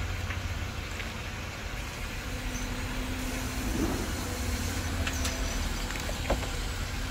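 Steady low rumble of a motor vehicle, with a few faint clicks and knocks.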